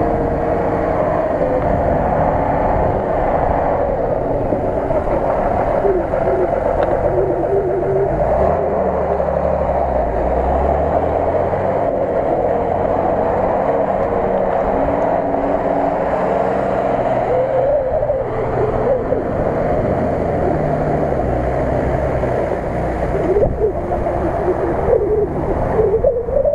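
Off-road vehicle engine running over rough ground, its revs rising and falling.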